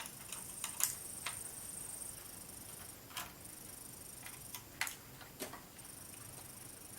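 Irregular small clicks and ticks of a screwdriver working the hard-disk screws in an Asus X453S laptop's chassis. The clicks are clustered in the first second and a half, with a few more spaced out after.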